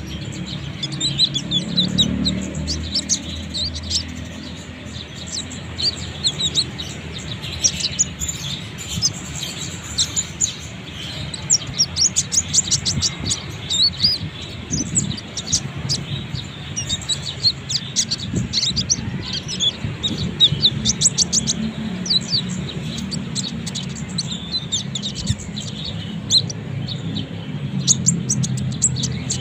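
Konin (kolibri ninja) sunbird singing: rapid, high, sharp chirps and twitters in bursts, over a low steady hum.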